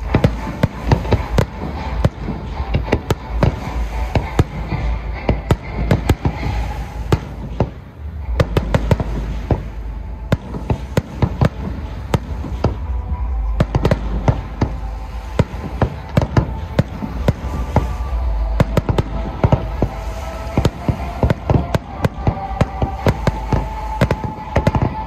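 Aerial fireworks display: a rapid, irregular barrage of bangs and crackles from shells bursting overhead, many per second.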